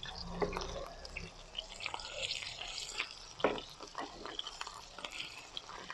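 Butter and chopped green onions frying in a nonstick frying pan: a faint sizzle with many small scattered pops and crackles, and one sharper click about three and a half seconds in.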